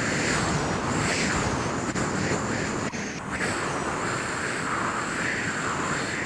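Rocket engine sound effect: a steady rushing noise that swells and fades about once a second.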